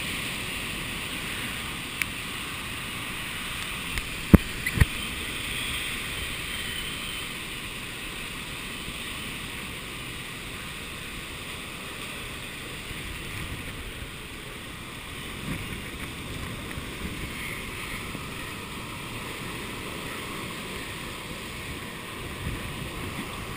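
Typhoon wind blowing hard and steadily as a rushing noise, with two sharp knocks about four and a half seconds in.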